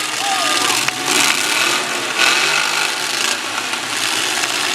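Demolition derby trucks working in the ring: a loud, continuous grinding and scraping of metal against metal, with a few sharp knocks from impacts and engines racing underneath.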